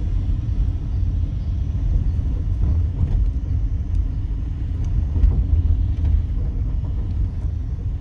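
Steady low rumble of a Chevrolet car's engine and tyres heard from inside the cabin as the car drives uphill.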